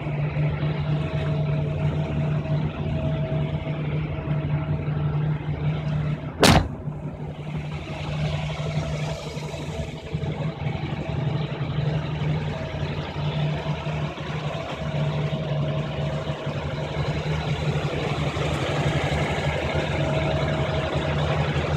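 Oldsmobile Holiday 98's Rocket V8 idling steadily. A single sharp bang comes about six and a half seconds in.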